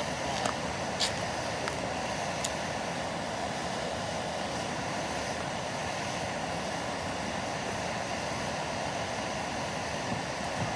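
Camping gas stove burner running on high flame, a steady hiss, with a few light clicks in the first couple of seconds.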